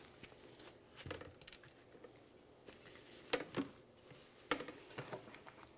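Faint soft taps and pats of wet eggplant slices being lifted from a metal colander and laid down on a towel-covered baking sheet, a handful of separate touches a second or so apart.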